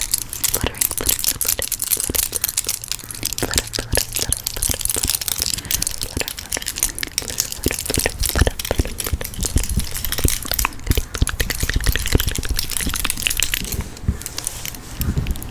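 Rapid, dense clicking and tapping over a crinkly hiss: ASMR hand sounds made with rings and tarot cards. It thins out near the end.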